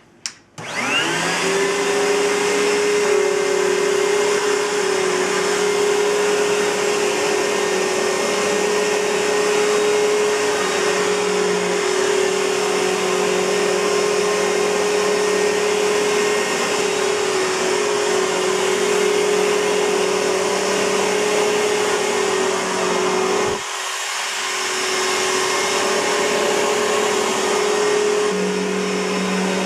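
2007 Simplicity Symmetry upright vacuum cleaner switched on with a click, its Suzhou Kaihang motor winding up to speed within about a second, then running steadily with a hum and a rush of air. About 23 seconds in the sound dips briefly, then carries on.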